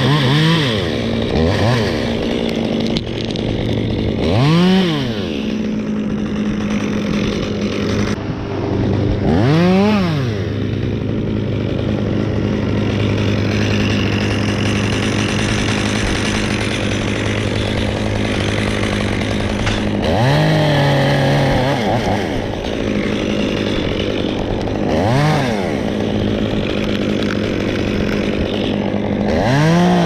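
Stihl chainsaw idling between cuts and revved up about seven times as it cuts through black walnut limbs. Each rev climbs and falls back within about a second, and one is held longer about twenty seconds in.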